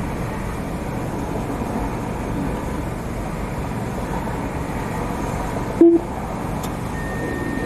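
Steady low rumble of an idling car and outdoor traffic, with one short, loud low beep nearly six seconds in.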